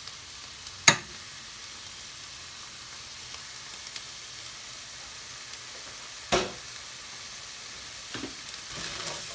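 Chickpeas and spices sizzling steadily in a stainless steel pan, with two sharp knocks: a loud one about a second in and a softer one at about six seconds.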